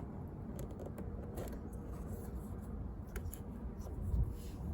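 Faint handling noises with a few light clicks, as an electrical connector is worked loose and unplugged, over a steady low hum.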